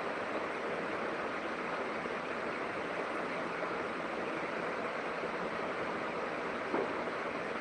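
Steady rushing of flowing water, even throughout, with one faint click near the end.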